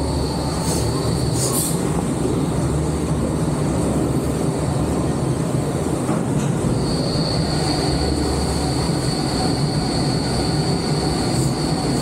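Intamin rapid river ride raft travelling through a covered section: a steady mechanical rumble and hum from the ride. A thin, high, steady whine sounds briefly at the start and comes back about halfway through.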